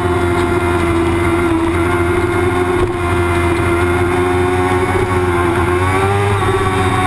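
Racing motorcycle engine at high revs, heard from a camera mounted on the bike, with wind and road noise. It holds a steady note through a long corner, and the engine note sags slightly about six seconds in, then picks up again.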